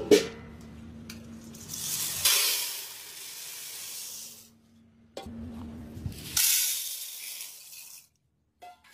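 Dried whole chickpeas poured from a steel bowl into a steel bucket: a hissing, rattling rush of grains on metal, heard as two pours. Metal vessels clank against each other at the start and again midway.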